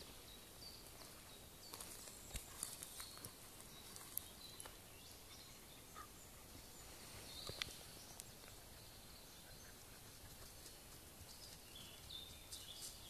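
Quiet woodland background with faint, scattered crackles and clicks of steps on dry leaf litter and twigs, and a few faint, brief, high bird chirps.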